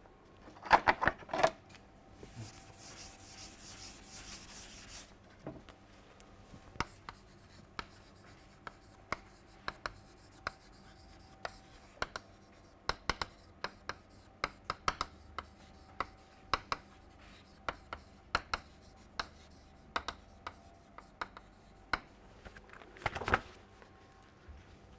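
Blackboard being wiped with a duster, a few seconds of hissing rubbing, followed by chalk writing on the board: a long run of sharp, irregular taps and scratches as the letters go down.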